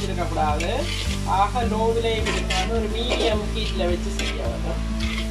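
A slotted spatula stirring and scraping through a sizzling stir-fry of shredded vegetables, chicken and prawns in a large pan. Background music with a steady beat plays underneath.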